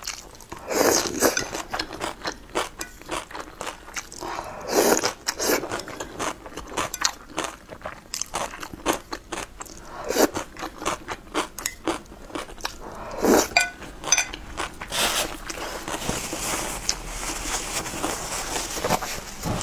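Close-miked eating: crunchy chewing with many small wet mouth clicks, broken by several louder slurps of noodles from a soupy bowl. In the last few seconds a soft paper rustle, from a napkin wiping the mouth.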